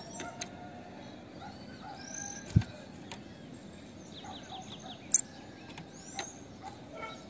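Female bananaquit calling: short, thin, high chirps and a quick run of about five notes. A sharp thump comes about two and a half seconds in and a loud click about five seconds in.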